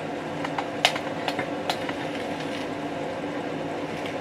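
Steady background hum in a room, with a few light clicks and taps in the first two seconds.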